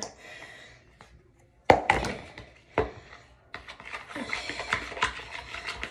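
A few sharp knocks against a plastic bowl, then a spoon stirring and scraping a thick lotion-and-shampoo mixture in the bowl, starting about three and a half seconds in.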